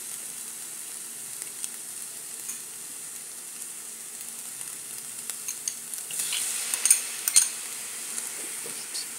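Ground beef with onion and green pepper sizzling in a frying pan, a steady hiss with small crackles. After about six seconds chopped tomato goes in, with louder sizzling and a few sharp clicks.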